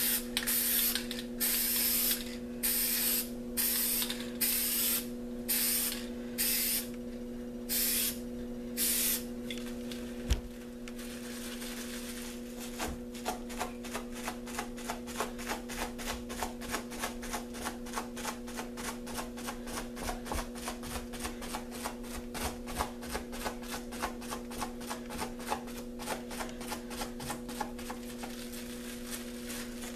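An aerosol spray-paint can fired in about ten short hissing bursts over the first nine seconds. From about twelve seconds in comes a fast, steady crinkly ticking as crumpled plastic is dabbed on the wet paint to blend the colour. A steady low hum runs underneath.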